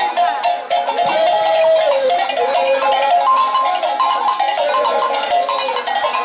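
Group of people singing together to shaken beaded gourd rattles (shekere) and hand percussion, with a dense, continuous rattling over the voices.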